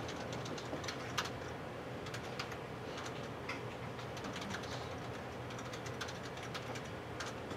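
Computer keyboard keys clicking irregularly as people type, a few scattered taps at a time, over a steady low room hum.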